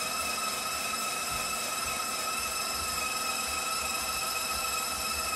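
KitchenAid stand mixer running at high speed, driving its rotating slicer/shredder drum as carrots are shredded: a steady high motor whine over a rushing hiss.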